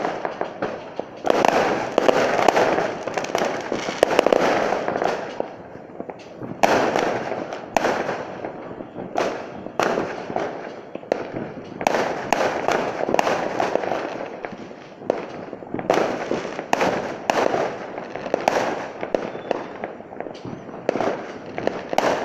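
Fireworks going off all around: many sharp bangs of bursting shells, irregular and often several in quick succession, over a continuous noisy crackle.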